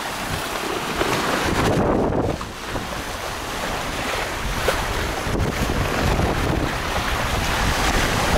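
Wind buffeting the microphone over the rush and splash of water along the hulls of a Hobie Cat 16 catamaran sailing at speed.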